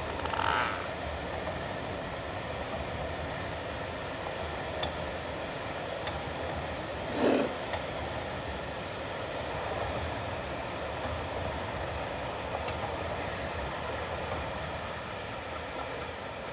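Long freight train of tarpaulin-covered wagons rolling past: a steady rumble of wheels on rail. It is broken by a few short sharp squeaks, and by a louder brief squeal falling in pitch about seven seconds in.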